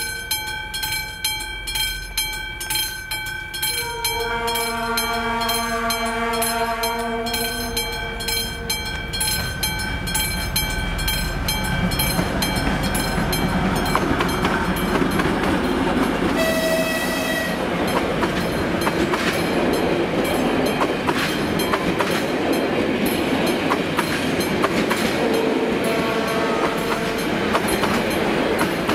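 Level-crossing warning bell ringing about twice a second as a train approaches. The train's horn sounds three times: a long chord about four seconds in, a short higher blast about halfway through, and another near the end. The rumble of the train grows steadily louder as it nears the crossing.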